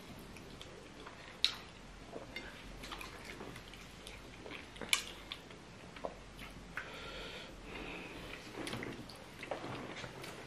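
Faint chewing and mouth sounds of people eating fufu and pepper soup by hand, with a few short sharp clicks and smacks.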